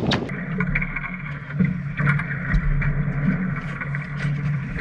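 Charter fishing boat's engine running with a steady, even hum, under a few light clicks and knocks from the deck.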